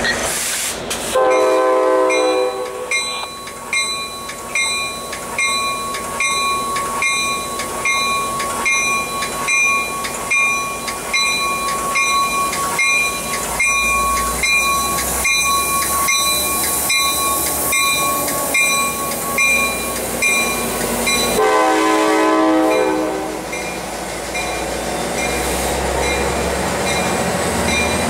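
F59PHI diesel locomotive's horn sounding two blasts, a short one about a second in and a longer one about 21 seconds in, with a bell ringing rhythmically between them as the train approaches. Near the end the locomotive's engine and wheels rumble up as it reaches and passes.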